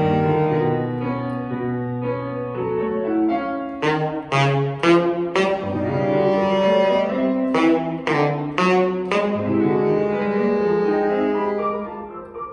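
Alto saxophone and Steinway grand piano playing a classical duet. Long held saxophone notes over the piano are broken by two groups of four short, sharp notes, about four and eight seconds in, and the music turns softer near the end.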